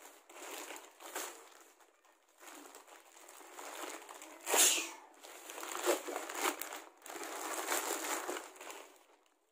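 Plastic courier mailer pouch being torn open and crinkled by hand, rustling in irregular bursts, with one louder, sharper burst about four and a half seconds in.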